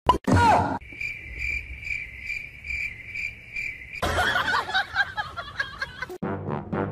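Cricket chirping sound effect: a high chirp repeating a little over twice a second, after a short loud sound at the start. About four seconds in it gives way to a burst of mixed noise, and brass music starts near the end.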